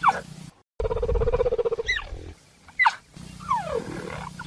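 Cheetah calls: short calls falling sharply in pitch, repeated several times, with a low pulsing rattle lasting about a second and a half, starting about a second in.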